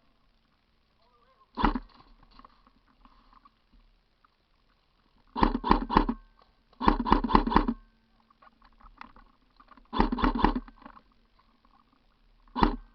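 Airsoft guns firing short bursts of shots: a single shot, then bursts of three and four, another three, and a last single shot near the end.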